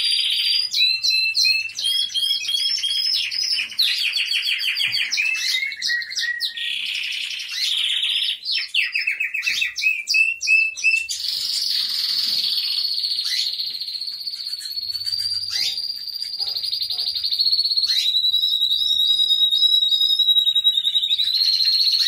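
Spanish timbrado canaries singing: fast trills and choppy repeated notes, then, about halfway through, one long unbroken rolling note held at nearly the same pitch for several seconds, broken by a few short rising notes.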